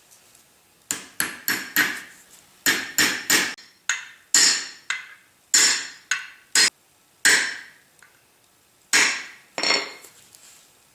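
Hammer tapping a steel shaft into a planer table roller, driving it in to line up with the pin hole. About fifteen sharp metallic strikes come in irregular groups of two to four, each ringing briefly.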